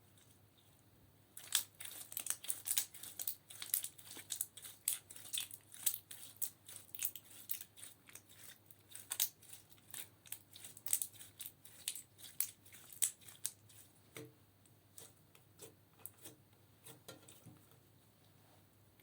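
Slime with eyeshadow mixed in, worked by hand, giving quick sticky crackling clicks and pops. The clicks start about a second and a half in, come thick and fast, then thin out to scattered pops in the last few seconds.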